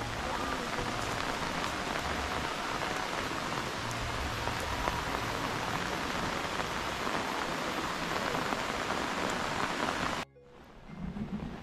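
Heavy rain falling steadily. About ten seconds in the sound cuts off sharply, then the rain comes back more quietly.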